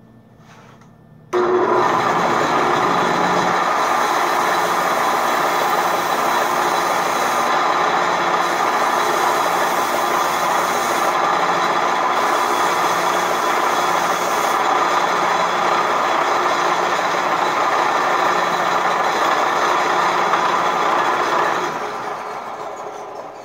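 Belt sander starting about a second in and running steadily while a crepe-rubber cleaning stick is pressed against its grit-loaded abrasive belt to clean it. Near the end the sander is switched off and the sound fades as the belt runs down.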